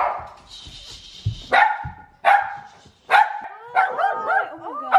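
A small dog barking repeatedly, sharp barks roughly a second apart, running into a quicker string of higher calls near the end.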